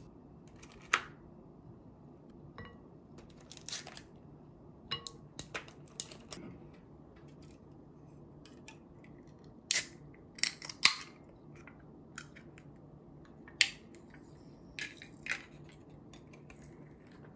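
Scattered sharp clicks and clinks of tableware handling: ice cubes dropped one by one into a bowl of cold soy-milk noodle soup, then an aluminium soda can picked up and handled while drinking through a straw. A faint steady low hum runs underneath.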